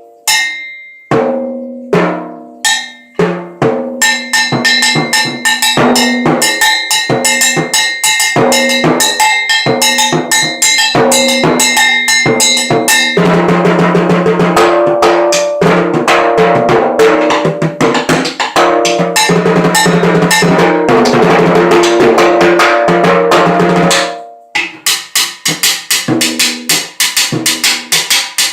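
Drum kit being played: a few single strikes about a second apart, then fast drumming from about four seconds in that thickens into dense, continuous playing, easing back to a clearer rhythmic beat near the end.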